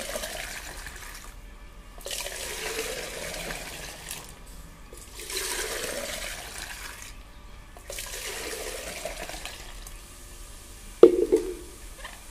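Juice poured in a splashing stream from one plastic jug into another, back and forth four times with short pauses between. A single sharp knock near the end, as a jug is set down.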